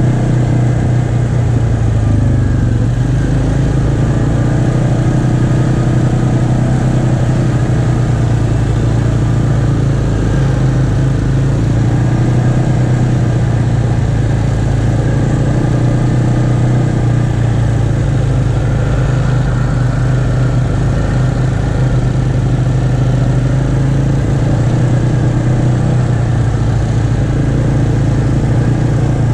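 ATV engine running steadily at trail-riding speed, a constant loud drone that barely changes in pitch.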